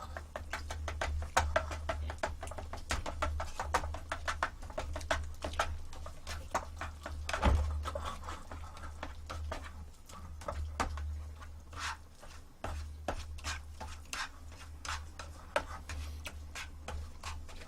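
A utensil clicking and scraping against a bowl as eggs are mashed up, with many quick irregular clicks throughout over a steady low hum.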